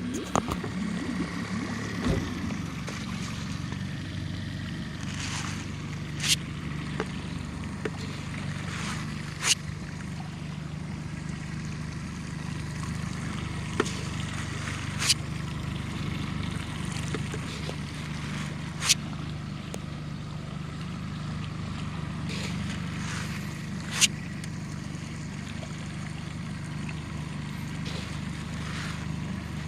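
Small boat's motor running steadily on a pond, with a sharp knock every few seconds and water splashing while fish feed is scattered.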